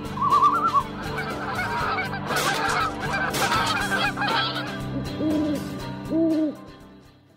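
Geese honking over a steady music bed: a busy stretch of overlapping honks, then two single honks near the end before everything fades out.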